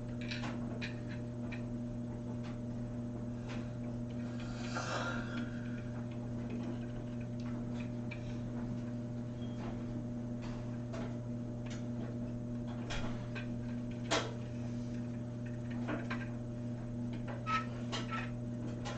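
Irregular light clicks and taps of jewelry organizer parts being handled and fitted together during assembly, over a steady low electrical hum.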